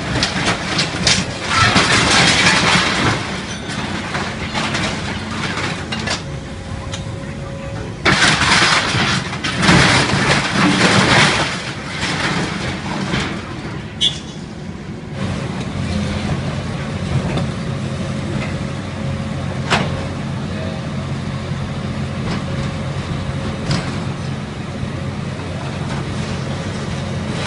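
Diesel engine of heavy demolition machinery running steadily, with loud crunching and crashing as the building is torn down: one long stretch at the start and another from about eight to eleven seconds in, and a few sharp knocks later.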